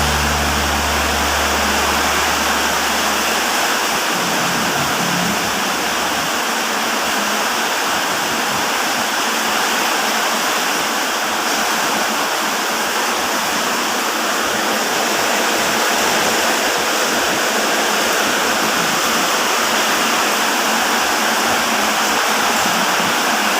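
Heavy rain falling, a dense steady hiss that neither swells nor breaks.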